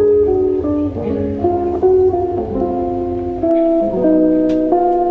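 Background music: a melody of plucked acoustic-guitar notes. A low rumble under it stops about three and a half seconds in.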